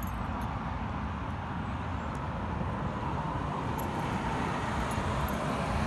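Steady road traffic noise.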